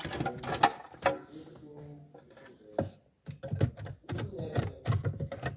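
Scattered clicks and taps of hands working on plastic car dashboard trim around the radio, with indistinct voices in between.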